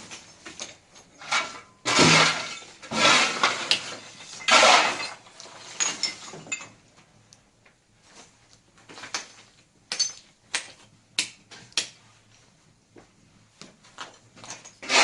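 Clattering and clinking of household objects: a few loud rattling scrapes in the first half, then scattered sharp clicks and knocks.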